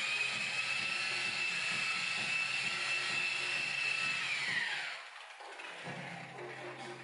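Electric rotary polisher with a wool buffing pad running at steady speed with a high whine as it buffs a motorcycle's painted fuel tank. About four seconds in the motor is switched off and winds down, its whine falling in pitch until it stops.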